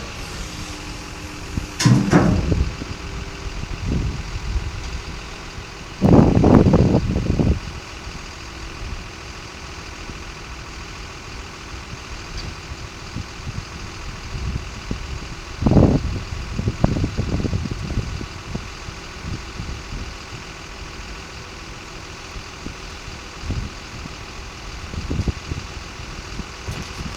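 Komatsu WA270 wheel loader's diesel engine idling steadily, with short louder bursts about two seconds in, around six seconds in and again around sixteen seconds in.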